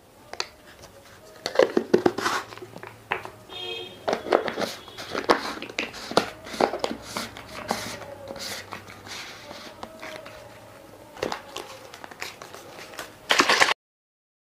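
Plastic protein shaker bottle being handled as its lid is fitted and closed: scattered clicks, taps and rustles, with a brief plastic squeak about four seconds in. A short louder burst comes near the end as shaking starts, then the sound cuts off suddenly.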